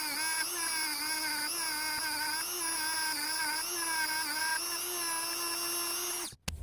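A handheld rotary tool spinning a small wire brush against a threaded metal carburetor fitting to scrub off gunk. It makes a steady high whine that dips and wavers a little in pitch as the brush bears on the part, and it cuts off suddenly just before the end.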